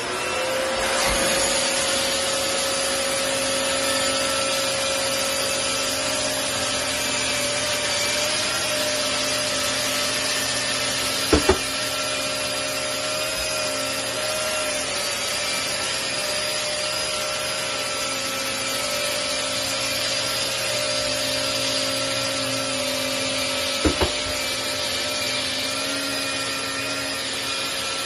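Festool Planex Easy long-reach drywall sander running with its dust extraction, the abrasive pad sanding popcorn texture off a ceiling. It makes a steady motor whine over a hiss of air and abrasion, and settles at full speed within the first second. There are two brief double knocks, about 11 seconds in and again about 24 seconds in.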